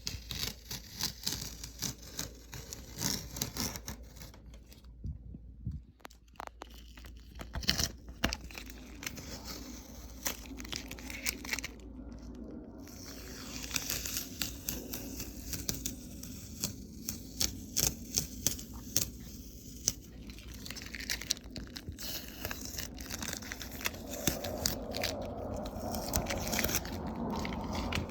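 Paintbrush scrubbing and dabbing paint into the carved relief of a picture frame: quick, light, irregular scratchy strokes with small taps and clicks.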